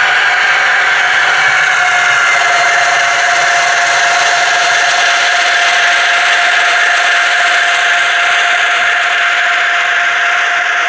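Piko H0-scale BR 130 model diesel locomotive running past close by: a steady whir with a high whining tone.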